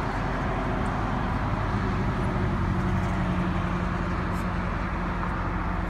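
A steady low mechanical hum, an engine running at an even speed, a little stronger from about two seconds in.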